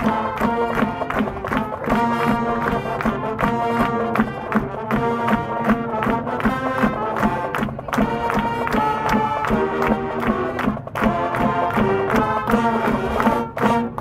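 High school marching band of brass, woodwinds and drums playing the school fight song loud, over a steady drum beat.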